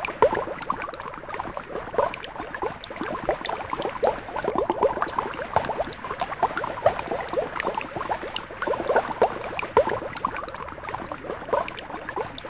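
Water running from a miniature toy water dispenser's tap into a small plastic cup, with a constant quick bubbling as air rises into the bottle.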